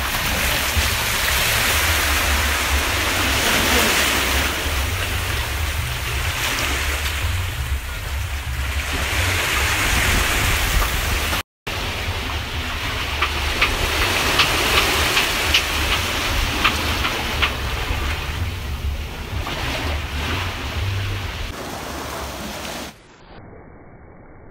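Sea surf washing over rocks and shallow water, with wind buffeting the microphone and a few small splashes of feet wading. A brief cut to silence about halfway through, and near the end the sound drops to quieter, duller surf.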